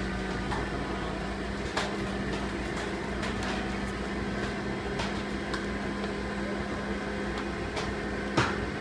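Steady mechanical drone of a self-propelled modular transporter's power pack and hydraulics as the multi-wheeled trailer moves its load, with one steady hum tone and a few faint clicks.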